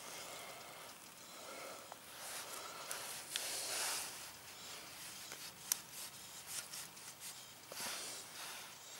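Freshly lit pressed-wood fire starters burning with a soft hiss and irregular crackle. A sharp pop comes a little before six seconds in.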